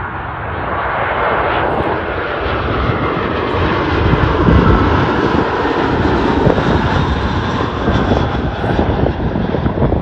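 Airbus A320-232 on landing approach with its gear down, passing low overhead on its twin IAE V2500 turbofans. The jet roar builds to its loudest about four to five seconds in and stays strong, with a faint whine falling in pitch as the aircraft goes by.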